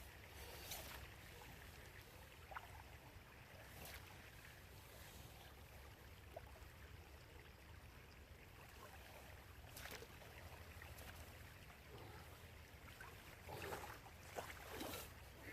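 Near silence: faint riverbank ambience, a low steady hiss of flowing river water with a few faint clicks and a brief patch of rustling near the end.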